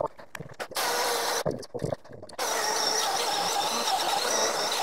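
Milwaukee M18 cordless chainsaw: the electric motor and chain spin up briefly about a second in, stop, then run steadily from about halfway as the saw goes into a log.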